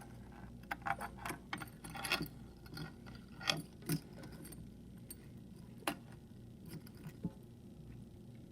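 Small metallic clicks and taps from a Yale Superior euro cylinder lock being worked apart with hand tools: a quick run of clicks over the first few seconds, then a few single clicks.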